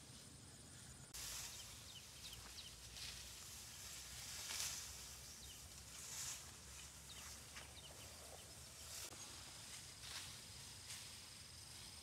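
Faint outdoor rustling with a handful of short swishes, over a thin steady high insect drone, with scattered small chirps.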